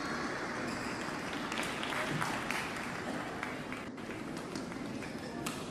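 Arena crowd noise between badminton rallies: a steady wash of spectator chatter with applause and a few sharp claps or clicks.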